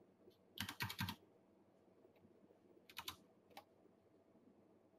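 Keys on a computer keyboard pressed in quick clicking flurries, entering a cover order on a trading platform: a run of about half a dozen clicks about half a second in, a few more near three seconds in, and one more shortly after.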